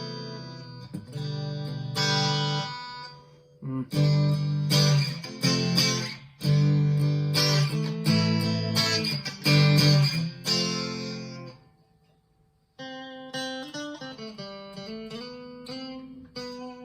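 PRS SE Standard 24 electric guitar played clean on its bridge humbucker coil-split to single coil: strummed chords left to ring, a short pause, then a run of single picked notes.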